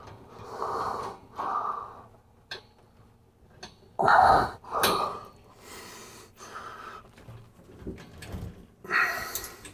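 A man's heavy breathing: puffs of breath with louder huffs of effort about 4 seconds in and near the end.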